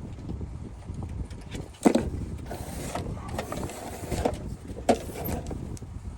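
Hands working on a desktop PC case and its cables: rustling and handling, with two sharp knocks, about two seconds in and about five seconds in, over a steady low background rumble.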